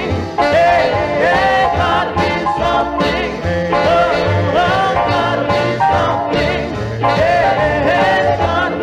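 Rhythm-and-blues jump record playing: a wordless passage with a gliding lead melody over a steady, bouncing bass line and beat.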